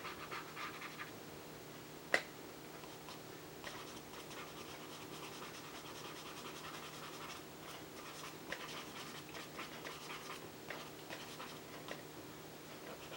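Pastel pencil scratching across vellum-surface mixed media paper in runs of quick back-and-forth strokes, with a sharp tap about two seconds in. A faint steady hum runs underneath.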